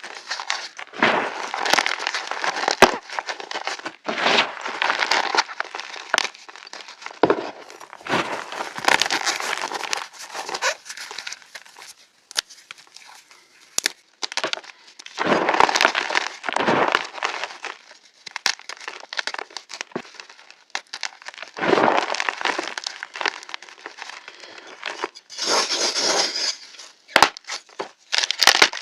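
Fresh gym chalk being crushed: repeated crunching and crumbling bursts with sharp cracks, coming in waves of a second or two with short pauses between.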